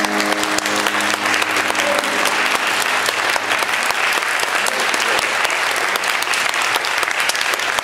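Audience applauding, with the keyboard's last held chord fading out in the first couple of seconds.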